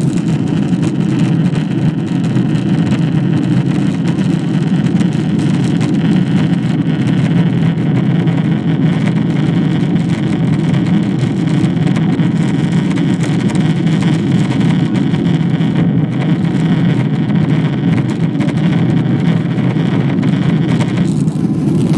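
Steady cabin noise inside a Boeing 777-200 climbing after takeoff: a deep, even drone of its GE90 turbofan engines mixed with rushing airflow, loud and unbroken.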